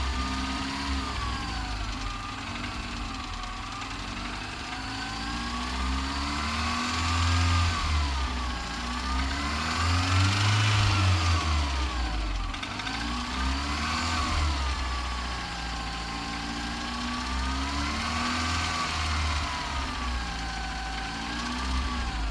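An engine revving up and falling back again and again, roughly every four seconds.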